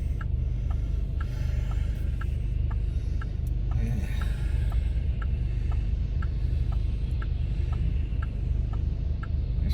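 Inside a vehicle's cabin: a steady low engine rumble under the regular ticking of the turn-signal flasher, a higher and a lower click in turn, about two to three a second, as it waits to turn.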